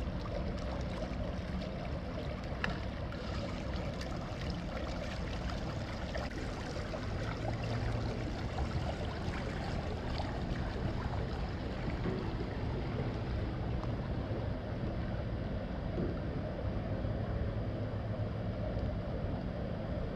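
Diesel engine of an 867 hp inland motor cargo ship running steadily as it passes, a low even hum over a steady wash of water.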